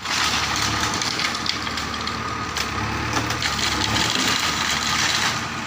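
Construction work: a continuous gritty scraping and crunching noise that drops off about five seconds in.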